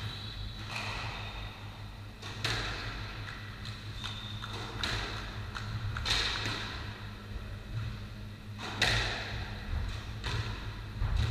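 Squash ball being struck by rackets and hitting the court walls during a rally: about six sharp, echoing smacks, one every one to two seconds.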